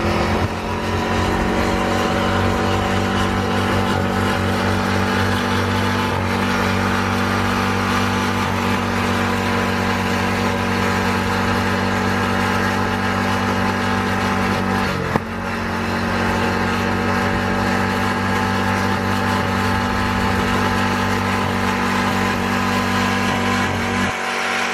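Ride-on lawnmower's small petrol engine running steadily at high revs under way, with one brief dip about two-thirds of the way through.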